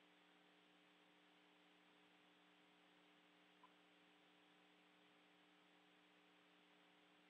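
Near silence: the faint, steady hiss and hum of an open space-to-ground radio audio line, with one tiny tick about three and a half seconds in.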